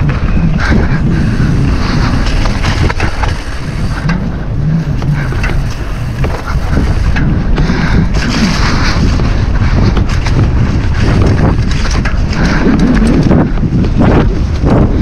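Wind buffeting the microphone of a camera riding on a downhill mountain bike at speed, over a steady low rumble, with frequent short knocks and rattles as the bike runs over rough trail.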